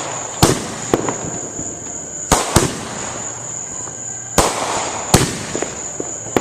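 Consumer fireworks going off: about seven sharp bangs at uneven spacing, half a second to two seconds apart, with crackling in between.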